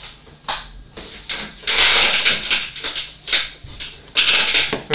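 Rustling and shuffling of a person shifting and turning in a chair close to the microphone, in several irregular bursts, the longest about two seconds in and another near the end.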